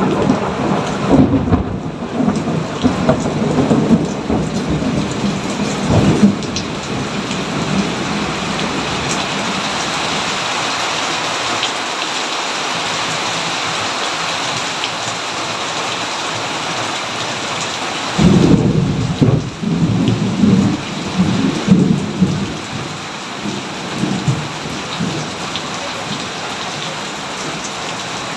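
Steady rain falling through a thunderstorm, with two rolls of thunder: the first rumbling and crackling over the first few seconds before dying away, the second breaking in suddenly about two-thirds of the way through and rumbling for several seconds.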